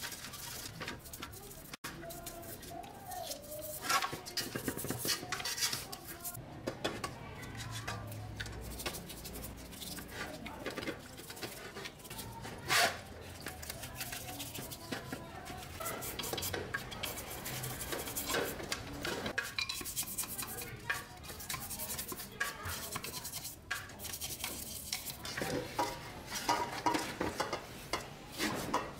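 Old electric chainsaw parts being scrubbed with a toothbrush and a small brush in an aluminium basin of dirty cleaning liquid. Bristles scrub, liquid sloshes, and metal parts now and then knock sharply against the basin.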